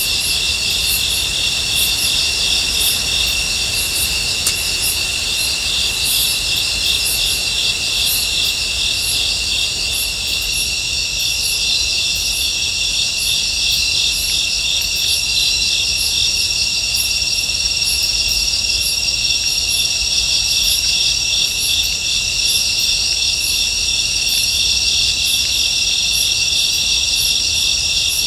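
Steady chorus of night insects, crickets trilling in many overlapping voices, with a separate high-pitched chirp repeating at short, even intervals.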